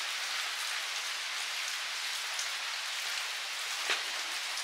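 Steady rain falling, an even hiss, with one faint click about four seconds in.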